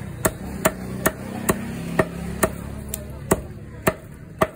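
Meat cleaver chopping chicken pieces on a wooden log chopping block: sharp, evenly spaced strokes about two a second.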